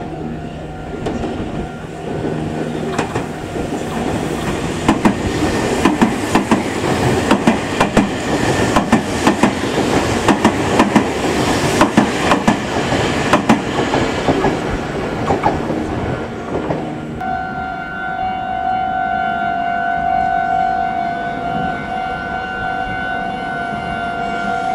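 Red-and-white Meitetsu electric train passing through the station at speed, its wheels clattering over the rail joints in a rapid run of clicks. The sound builds and then fades over about seventeen seconds. After it passes, a steady ringing tone of a level-crossing alarm takes over.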